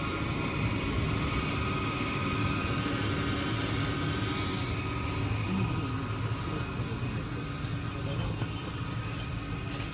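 Steady supermarket ambience: a low continuous rumble with a few faint steady hum tones over it.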